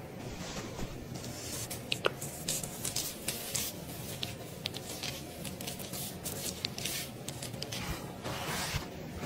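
Close-miked skincare ASMR sounds of hands and tools working on skin: soft squishing and crackling of cleansing foam, with many small clicks and taps.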